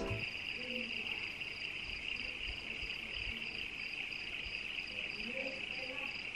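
A steady chorus of insects: a continuous high chirring with a faster, evenly pulsing higher note over it, and a few faint low calls now and then.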